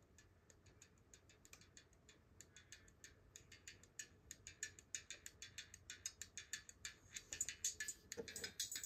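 Faint, rapid, irregular crackling clicks from a homemade fully 3D-printed speaker driven by an amplifier, growing louder toward the end as the amplifier's volume is turned up.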